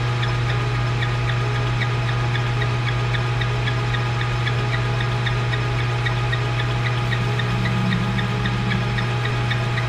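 Small metal lathe running, a steady motor hum with a light tick repeating about twice a second, as a radius form tool is fed into the spinning knob stock. A rougher, buzzier tone joins about three quarters of the way through as the cut takes hold.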